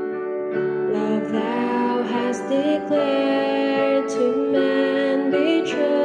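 Background music: a song with a singing voice holding long notes over instrumental accompaniment.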